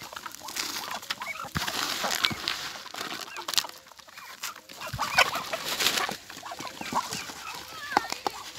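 Chickens clucking while pecking cracked-corn feed from a rubber feeder, with many sharp clicks of beaks and feed falling into the feeder.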